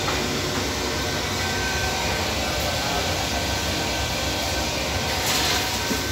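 Commercial bakery oven running with a steady low hum and rushing noise from its motor and fan.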